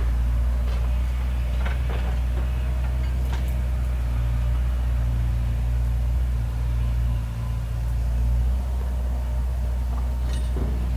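Bobcat 331D mini excavator's diesel engine running steadily under load while it digs clay fill, with a few faint knocks and scrapes of the bucket.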